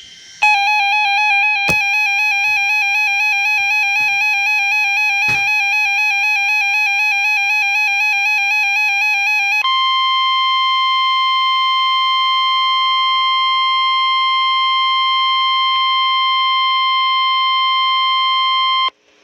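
Weather radio alert tones: a warbling electronic alarm for about nine seconds, then the steady single-pitch 1050 Hz warning alarm tone for about nine seconds more, which cuts off suddenly. The tones signal that an emergency weather warning is about to be read.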